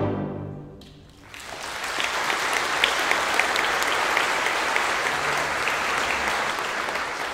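An orchestra's final chord fades out, and about a second later the concert audience starts applauding steadily, marking the end of the piece.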